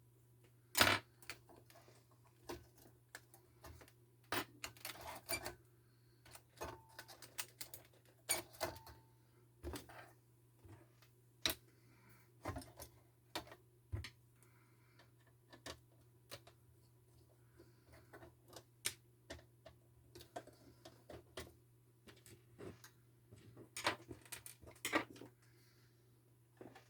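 Irregular clicks, taps and light clatter of tools and parts being handled while a computer monitor is worked on, over a steady low hum.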